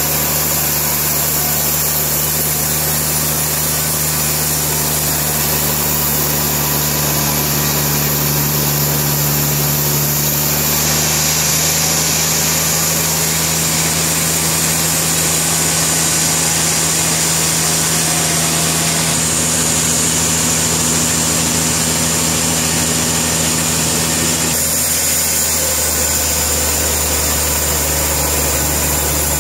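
Portable sawmill's engine running steadily, with the noise of the saw cutting through the log over it; the sound shifts abruptly a few times.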